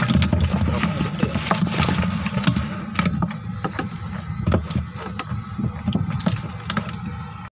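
Freshly caught fish flapping in a plastic cooler, their bodies and tails slapping against the plastic in a series of irregular sharp knocks over a steady low rumble.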